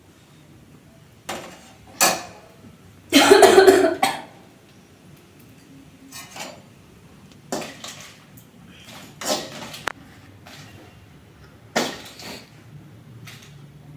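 Metal spoon clinking and scraping in a pan of dried red chillies, in short separate strokes. About three seconds in, one loud cough of about a second, brought on by the pungent chilli fumes.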